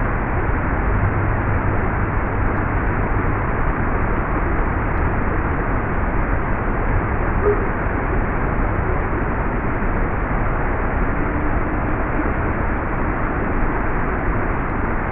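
Steady, even hiss of noise with no clear tone in it, holding the same level throughout.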